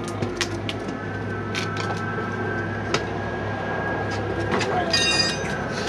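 Tire irons clicking and knocking against a motorcycle wheel rim while the rubber bead of a tubeless tire is pried up and worked off the rim, with a short squeak about five seconds in.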